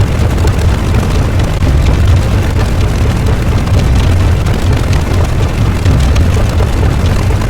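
A loud, steady low rumble with a rough hiss over it, unbroken and without pitch or rhythm.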